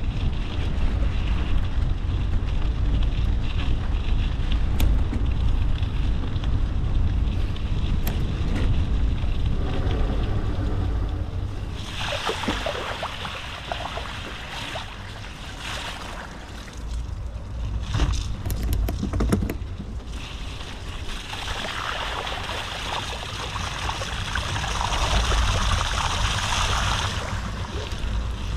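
Vehicle driving along a muddy dirt track, with steady rumble and wind noise on the microphone. About twelve seconds in it splashes through water, and a second stretch of rushing spray comes near the end.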